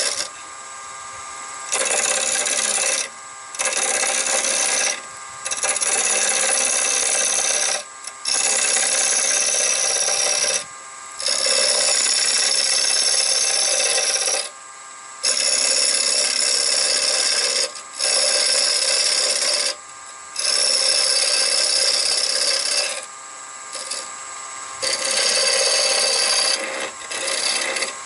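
Half-inch spindle gouge cutting a spinning wood blank on a Nova lathe, in passes of one to four seconds broken by short pauses where the tool comes off the wood. The lathe's steady hum runs underneath.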